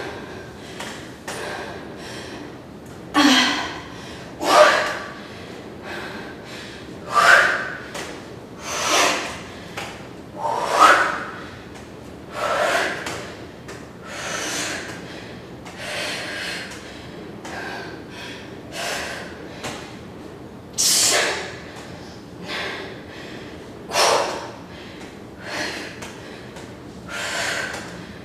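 A woman breathing hard from high-intensity exercise: sharp, noisy exhales and gasps come every one to two seconds, with the loudest a few seconds in and again around two-thirds of the way through.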